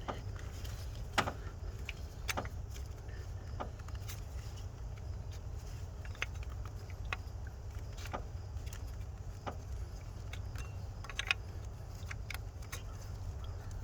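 Scattered light clicks and taps as a camshaft position sensor and small tools are handled and worked into place at the distributor of a 5.7 L V8, over a low steady rumble. Two clicks stand out, about a second in and near the end.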